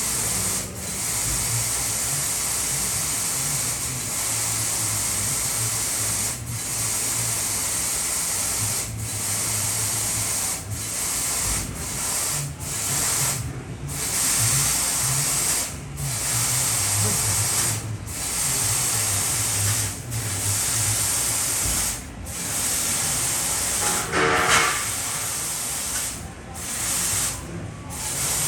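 BLM Adige 2500 W CNC tube laser cutting: a steady high hiss of gas at the cutting head, cut off briefly every second or two between cuts, over a low wavering machine hum. A short pitched squeal or whine stands out about 24 seconds in.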